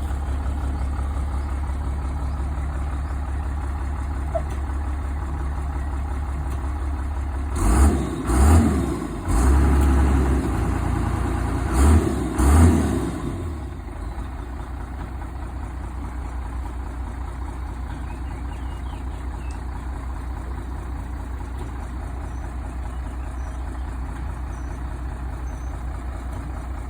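Heavy equipment's diesel engine running at a steady, pulsing idle. About eight seconds in it surges louder five times in quick succession over some six seconds, as the machine bears down to press the bent hay rake bar straight, then settles back to idle.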